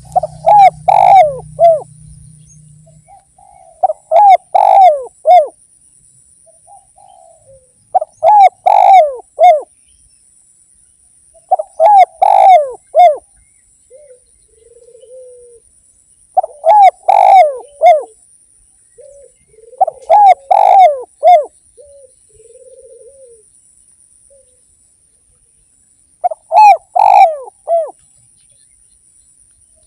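Spotted dove (derkuku) cooing: a quick phrase of several short coos, repeated seven times a few seconds apart, with a few softer coos in between. It is the full, frequent song of a bird in lively calling form, played as a lure to start other doves calling.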